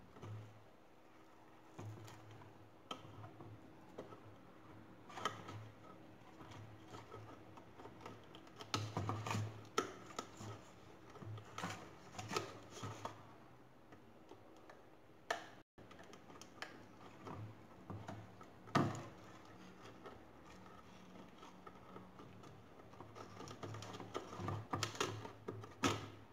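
A thin plastic bottle being handled while a cord is threaded through its neck: irregular light clicks and crinkles of plastic, coming in scattered clusters, over a faint steady low hum.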